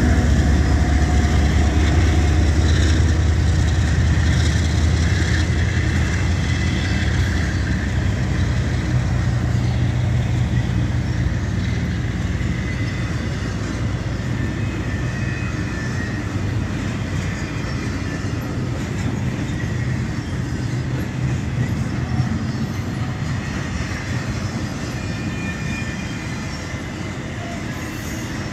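Double-stack intermodal freight train cars rolling past: a steady rumble and clatter of steel wheels on rail that grows gradually quieter. Faint high wheel squeal comes in at times.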